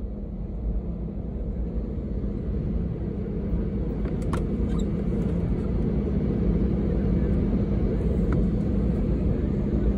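Cabin noise of an Airbus A320 taxiing: a steady low rumble with an engine hum, slowly growing louder.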